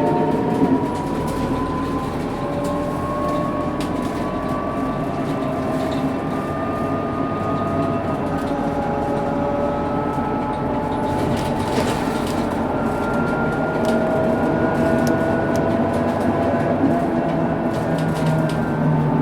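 Scania K230UB bus's rear axle differential whining while driving, a thin gear whine that rises slowly in pitch as the bus gathers speed and then holds steady, with a second lower whine joining partway through. Under it runs the bus's Scania DC9 engine and road noise, with light rattles and clicks.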